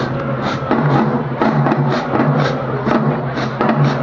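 Marching band playing as it enters the stadium, its drumline of snares, tenors and bass drums keeping a steady beat of about two strong hits a second over low sustained brass.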